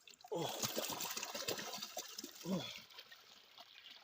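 Shallow water splashing and trickling, with a voice calling out over it.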